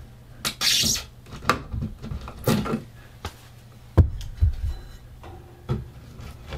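Blue plastic electrical box being pried out of a drywall cutout with a screwdriver and a flat metal pry tool: irregular scraping and knocking of metal on the plastic box. The loudest is a sharp knock about four seconds in.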